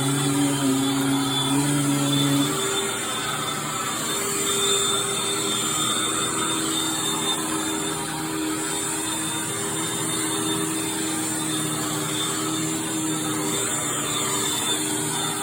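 Hoover Tempo upright vacuum cleaner running, a steady motor whir with a rushing air noise.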